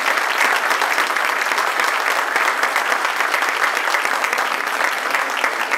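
Audience applauding: the steady, dense clapping of many hands.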